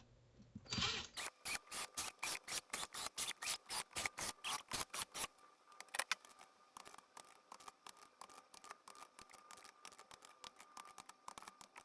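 Ratchet of a torque wrench clicking as oil pan bolts are torqued down, about five even clicks a second. From about five seconds in the clicking goes quieter and quicker.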